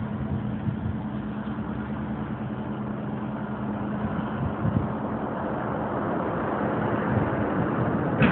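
Boat engine running steadily: a low, even hum under a constant rushing noise, growing slightly louder toward the end.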